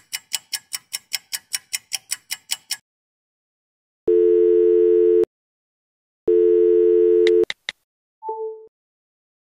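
Sound effects: a quick run of ticks, about four or five a second, then a telephone ringing tone heard down the line, two steady buzzy tones about a second long with a pause between. A couple of clicks follow, then a short two-note beep that falls in pitch.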